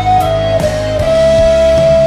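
A wooden recorder plays the melody of a pop ballad over a band backing track with drums and cymbals. It steps down through a few short notes, then holds one long note for most of the rest.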